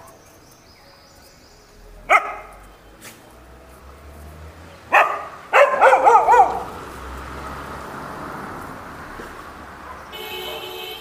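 Stray dogs barking and growling over scattered food: a single sharp bark about two seconds in, another around five seconds, then a brief squabble of wavering growls and yelps. A vehicle horn sounds briefly near the end.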